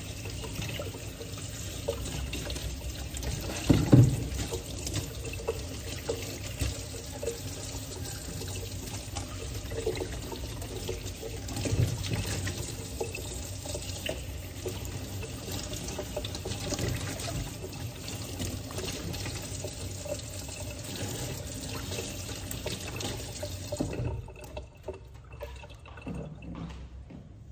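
Kitchen tap running into a stainless steel sink as leafy greens are rinsed under the stream, with splashing and a loud knock about four seconds in. The water shuts off near the end, leaving a few light knocks.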